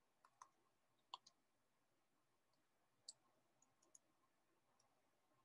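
Faint, irregular clicks of calculator keys being pressed, several in a row, as the sum of two squares and its square root is keyed in.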